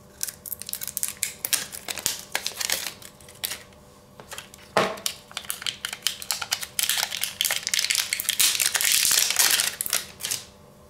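Plastic wrapping crinkling and crackling as a micro-USB charging cable is unwrapped by hand. The crinkling grows denser and louder in the second half, with a single knock about halfway through.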